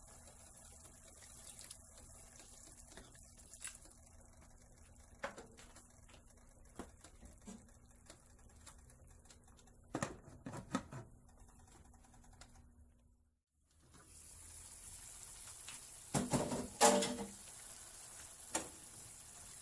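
Faint steady sizzling of ground pork simmering in a stainless pan, with water added. About ten seconds in, a few sharp clinks as a glass lid is set on the pan. After a brief dropout, louder clattering knocks of cookware near the end.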